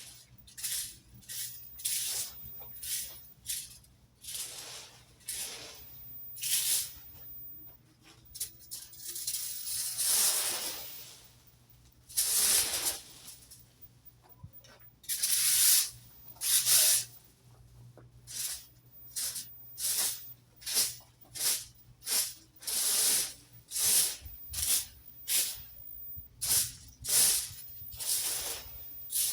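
Rake sweeping through leaves in repeated short, rustling strokes, roughly one or two a second at an uneven pace.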